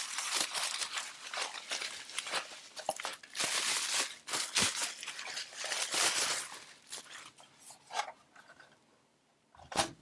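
Packaging being handled and unwrapped: irregular crinkling and rustling that dies down after about seven seconds, followed by two short sharp sounds near the end.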